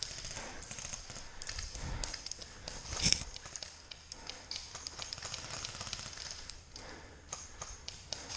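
Footsteps crunching through dry leaves and brush, with irregular small clicks and crackles and one sharper knock about three seconds in.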